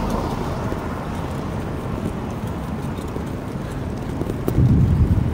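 Wind rumble on the microphone and road noise from a bicycle rolling along a city street, with louder low thumps near the end.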